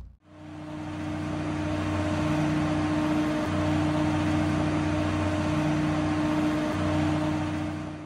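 Marine travel lift running as it holds the boat in its slings: a steady engine and hydraulic drone with one strong constant note, its lower pitch shifting a couple of times.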